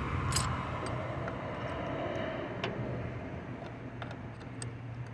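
Scattered light metallic clicks and taps of hand tools working on a car's starter area, over a steady low hum.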